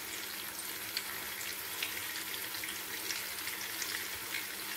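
Beef köfte patties shallow-frying in oil in a pan: a steady sizzle scattered with small crackles and pops.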